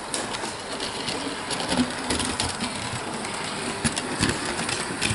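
Hornby Maunsell S15 model steam locomotive running along the layout track: a steady small-motor and wheel whirr with scattered clicks and a few sharper knocks from the wheels on the rails.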